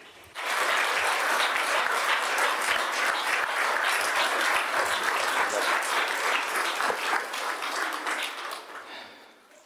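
Audience applauding: many people clapping at once, starting just after the start and dying away near the end.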